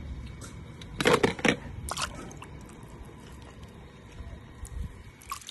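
Swimming-pool water splashing and dripping, with a few short splashes between about one and two seconds in over a faint steady wash.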